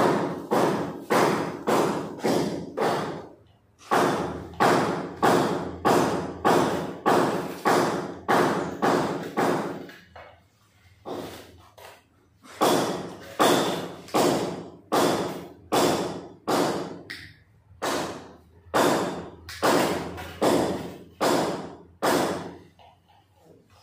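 Background music with a steady thumping beat: sharp notes that each ring and die away, about two a second, with short breaks between phrases.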